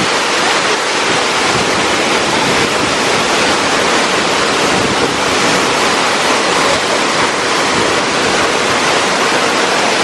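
Loud, steady rush of water from a waterfall and the shallow stream pouring over rocks below it, unbroken throughout.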